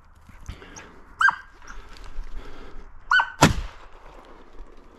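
A single shotgun shot about three and a half seconds in, fired at a fox: one sharp blast, the loudest thing here, with a low boom trailing after it. Before it come two short, high yelps from a hunting dog, about two seconds apart.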